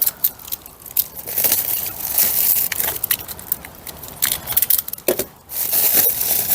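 Packaging crinkling and rustling as a new window regulator is handled, with scattered sharp clicks and taps and a louder clatter about five seconds in.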